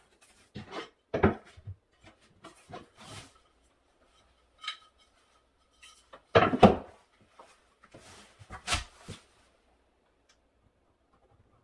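Wood pieces and hand tools being handled on a work surface while a board is measured and marked: scattered knocks, clatter and short scrapes, loudest about six and a half seconds in and again near nine seconds.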